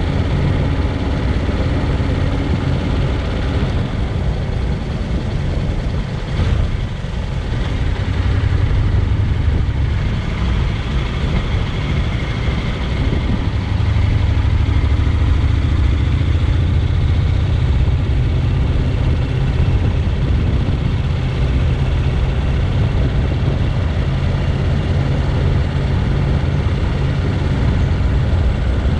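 Honda NC750X's 745 cc parallel-twin engine running steadily while the motorcycle is ridden, with a brief drop in engine sound about six seconds in.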